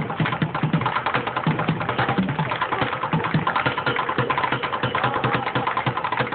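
Bucket drumming: fast, rapid-fire sticking on upturned buckets, a dense run of quick strokes.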